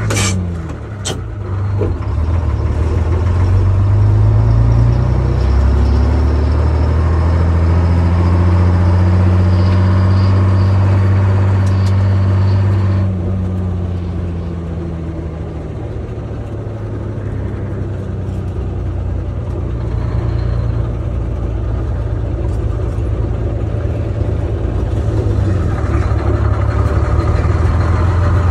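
Detroit Diesel 6-71 two-stroke inline-six diesel in a 1959 Walter truck pulling down the road, heard from inside the cab. Its pitch climbs after a brief dip about a second in, holds steady, falls off sharply about 13 seconds in, then slowly builds again.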